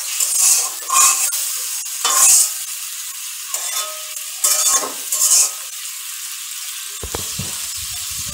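Water-mixed spice paste of turmeric, ginger-cumin paste and chilli powder sizzling as it fries in an aluminium kadai, at the stage where the masala is cooked down. A metal spatula scrapes and stirs it in about six strokes over the first five seconds, and after that the sizzle carries on alone.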